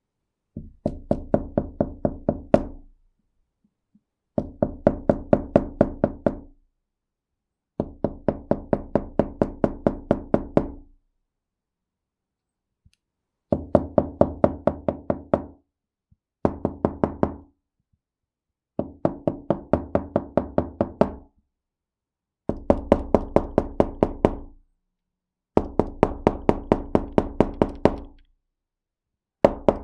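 Knuckles knocking on an indoor wooden door in quick runs of about five knocks a second. Each run lasts two to three seconds and is followed by a pause of about a second or more, with the door panel ringing a little after each knock.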